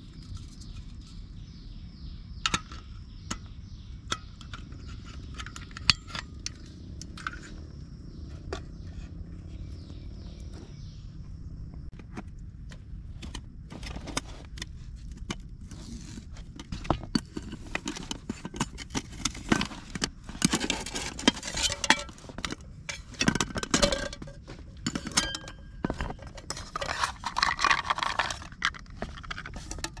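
Clinks, scrapes and clatter of metal camp cookware and gear being handled, sparse at first and then busy and louder in the second half. A steady high hum runs under it for the first ten seconds or so.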